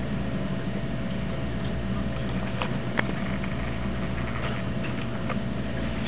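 Steady low mechanical hum with a few faint clicks, the sharpest about three seconds in.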